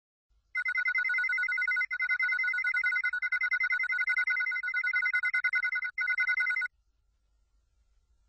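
An electronic ringing tone with a rapid trill, sounding for about six seconds with two brief breaks and then cutting off suddenly.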